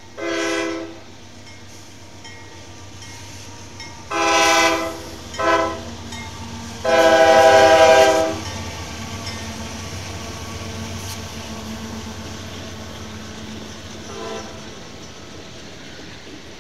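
Diesel freight locomotive's multi-chime air horn sounding the grade-crossing signal: two long blasts, a short one, then a longer final blast, over the steady rumble of the train. A faint short toot of the horn follows near the end.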